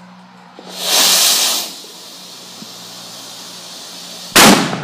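Fireworks going off: a loud hissing whoosh lasting about a second, then a fainter steady hiss, then a sharp bang near the end.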